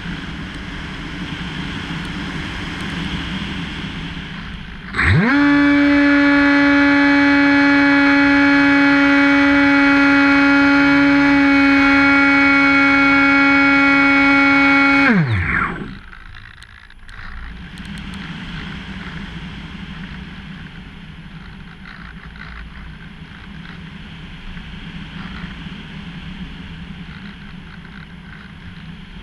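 Hobbyking Bixler powered glider in flight, wind rushing over the nose-mounted camera. About five seconds in, its electric motor and propeller throttle up quickly to a steady whine. The whine holds for about ten seconds, then cuts off and winds down in pitch, leaving the rush of gliding.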